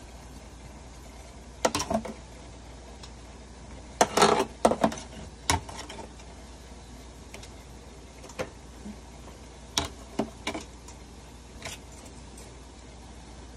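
Metal tongs clacking against a disposable aluminium foil tray as sausages are turned, in scattered groups of sharp clicks and scrapes, the busiest flurry about four to five seconds in.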